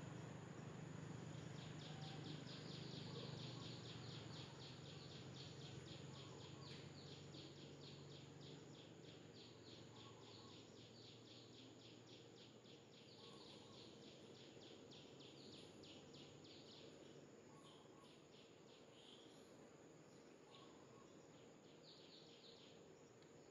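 Faint insect chirping in a fast, even pulse of high notes, breaking into shorter bursts in the second half, over quiet outdoor ambience.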